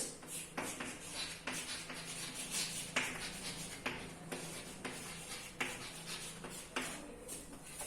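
Hand writing out a definition: a run of short, irregular scratching strokes, over a faint steady hum.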